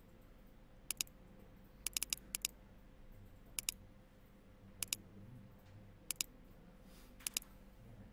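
Computer mouse button clicks, mostly in quick pairs of press and release, about once a second, over a faint steady electrical hum.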